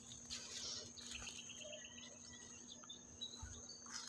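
Insects trilling in a steady, continuous high pitch, with faint scattered chirps and a few soft low thumps.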